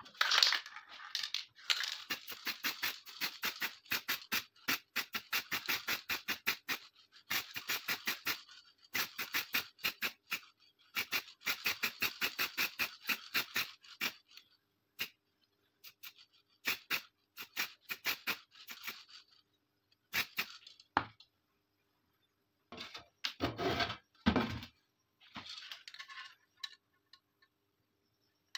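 Steel pistol slide being scrubbed by hand with quick, even back-and-forth strokes, several a second, in runs with short pauses, as its old dark finish is taken down to bare metal. The strokes grow sparse after the first two-thirds, and a few duller knocks follow near the end.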